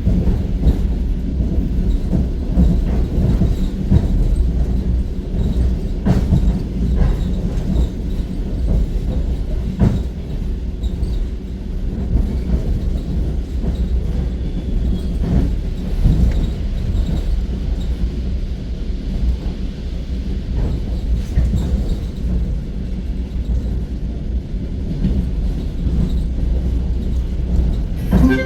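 Suburban electric multiple-unit train running, heard from inside the carriage: a steady low rumble with wheels clacking irregularly over rail joints every second or two.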